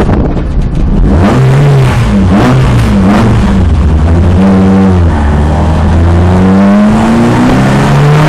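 Citroën Saxo's engine heard loud from inside the cabin, accelerating hard through the gears: its pitch climbs, drops back at each gear change, and climbs again several times.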